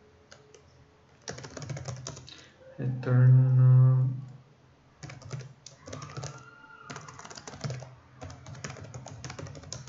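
Computer keyboard typing, in two runs of quick keystrokes with a short pause between them.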